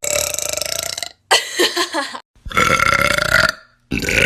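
A woman burping loudly four times in a row, each burp about a second long and pitched, with short breaks between; the last one runs on past the end.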